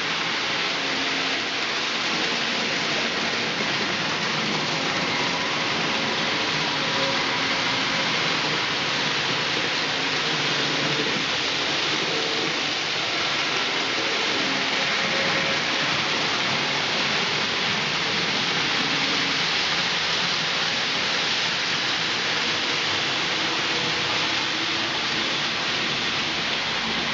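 N-scale model trains running on the layout: a steady rushing rattle of small wheels on track, with a faint motor hum that comes and goes.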